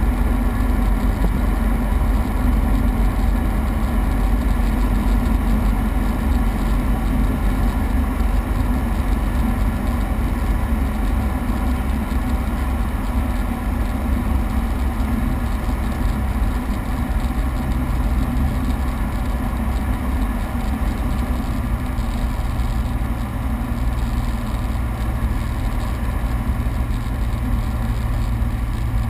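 Piper Saratoga's six-cylinder Lycoming engine and propeller drone steadily, heard inside the cabin on approach, with airflow hiss over the airframe. The engine note drops slightly in pitch and level a little past the middle.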